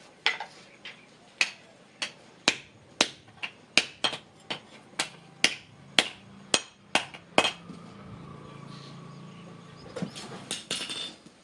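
Hammer blows on hot iron at the anvil while forging a spade blade: a steady run of sharp, ringing strikes about two a second, a short pause, then a quick flurry of strikes near the end.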